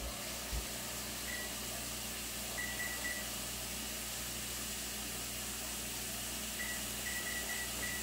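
Short, faint electronic beeps from an oven's digital timer keypad as it is set for a 30-minute bake: one about a second in, a few more around three seconds, then a quick run of beeps near the end. A steady hiss runs underneath, with two soft thumps right at the start.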